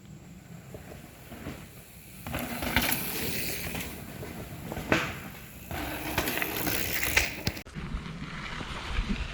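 Mountain bike rolling fast over a dirt trail: tyre noise and rattling, getting louder about two seconds in, with a few sharp knocks from bumps.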